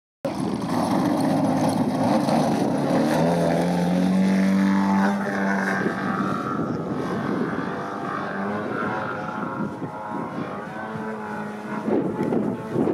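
A 104-inch Extreme Flight Extra 300 V2 radio-controlled aerobatic model plane, its engine and propeller running steadily, the note rising about three seconds in and then shifting up and down in pitch as the plane manoeuvres and passes low.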